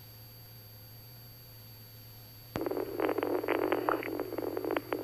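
A faint steady hum on the aircraft radio feed, then about two and a half seconds in a radio transmission keys in with a click and a burst of garbled, broken-up radio audio runs on to the end.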